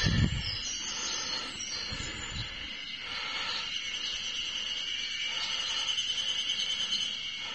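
A chorus of Ezo spring cicadas (Terpnosia nigricosta) calling: a steady high drone overlaid with pulsing, rhythmic calls that grow stronger about five to seven seconds in. Brief low rumbles hit the microphone at the start and at about two seconds.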